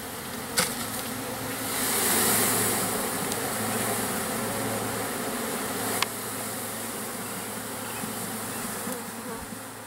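Many honey bees buzzing steadily around an open hive just after a package of bees has been poured in, with two light knocks as the wooden hive cover is set on top.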